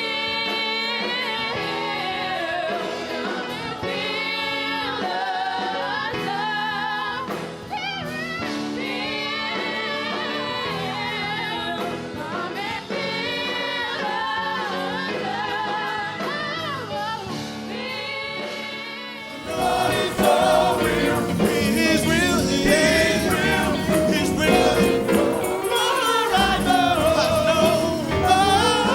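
Gospel choir singing with instrumental accompaniment. About twenty seconds in, it suddenly turns louder and fuller.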